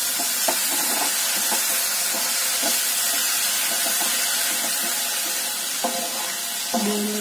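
Onion-and-spice masala frying in oil in a pan with freshly added tomato purée, giving a steady sizzling hiss, with a few light scrapes of the stirring spoon.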